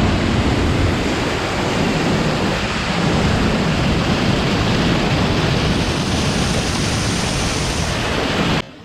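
Vajra waterfall's water pouring in a loud, steady rush that stops abruptly near the end.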